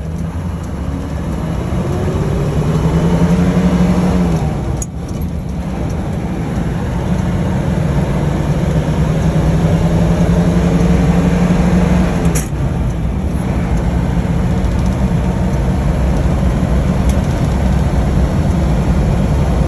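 1936 Chrysler C8's straight-eight engine pulling the car up through the gears. Its pitch rises, drops at a gear change about five seconds in, rises again for several seconds, drops at another change about twelve seconds in, then holds steady, over constant road and wind noise.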